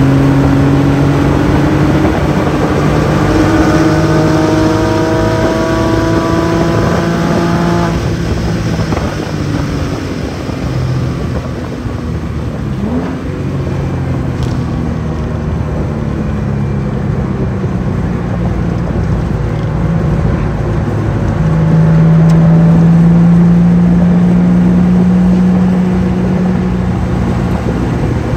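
Porsche 996 911's flat-six engine heard from inside the car at track speed. Its note rises slowly under power for about eight seconds, then falls away as the car slows for the infield and runs lower, and near the last quarter it pulls strongly again at its loudest.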